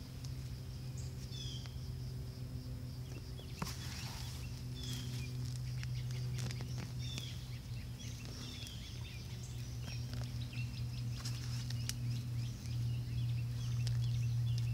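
Gloved hand raking and scooping loose potting soil in a tipped-over plastic container: soft rustling and scattered patter of soil. Short falling bird chirps repeat every second or so, over a steady low hum.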